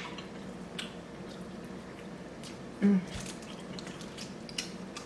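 Close-miked wet eating sounds of king crab meat being pulled apart, dipped in seafood sauce and chewed: scattered short smacks, squishes and clicks. About three seconds in there is one brief hum-like voice sound.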